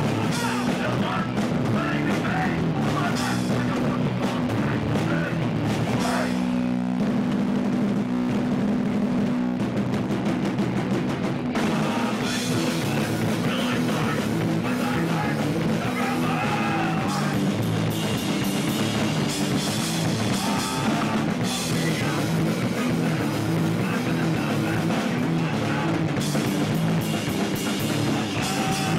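Hardcore punk band playing live: distorted electric guitar and bass over drums, recorded loud and rough.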